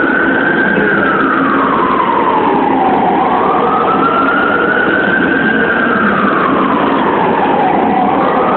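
A siren wailing, its pitch slowly rising, holding and falling again in a cycle of about five seconds, over a steady noisy din.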